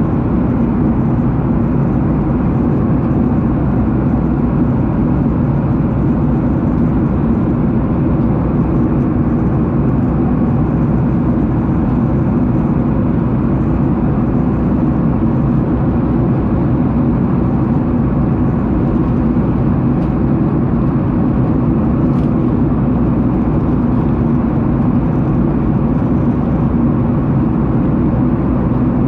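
Jet airliner cabin noise: a steady, loud low drone of engines and rushing air that holds unchanged throughout.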